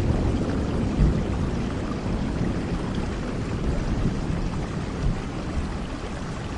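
Steady rain with a low rumble of thunder, the whole sound slowly dying away.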